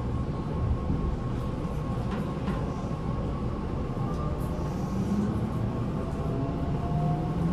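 Tobu 9050 series electric train heard from inside a motor car, running with a steady low rumble and its Toyo GTO-VVVF inverter's traction motor tone. Toward the end a motor tone rises slightly in pitch.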